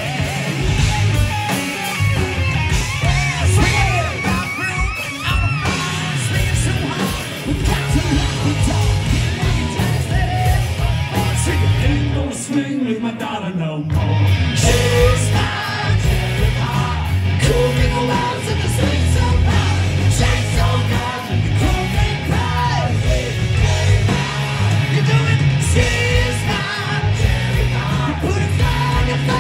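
Live hard rock band, loud through the PA: an electric guitar solo with bent notes, a falling pitch slide and a short break about halfway, then the singer comes back in, half-yelling the vocal over guitars, bass and drums.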